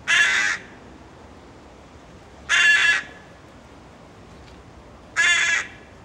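Young hooded crow calling three times, harsh caws of about half a second each, spaced roughly two and a half seconds apart.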